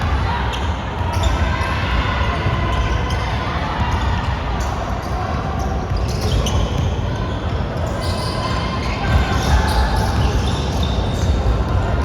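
Basketball game in an echoing gym: the ball bouncing on the court amid the irregular knocks and squeaks of play, with players calling out.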